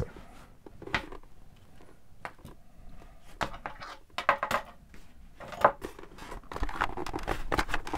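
Hard plastic Hasbro Black Series Bo-Katan Kryze helmet replica being handled and pulled on over the head: a string of light plastic clicks, knocks and rustles from the shell, its padding and straps, with a sharper knock about five and a half seconds in.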